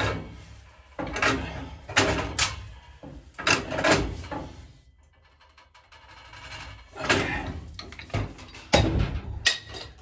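Pipe wrenches clanking and scraping on a steel gas pipe and union as the gas line to the boiler's gas valve is tightened back up. Irregular metal knocks come in clusters, with a quieter pause a little before halfway.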